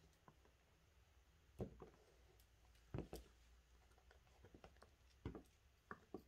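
Faint, scattered knocks and taps, about seven in all, the strongest coming as close pairs about one and a half and three seconds in.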